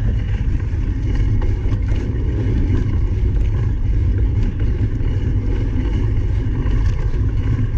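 Steady low rumble of wind and ground vibration on the microphone of a camera carried by a cyclocross rider on the move, with a few light clicks and rattles from the bike.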